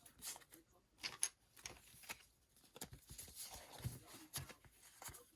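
Faint, irregular taps, clicks and rustles of trading cards being handled.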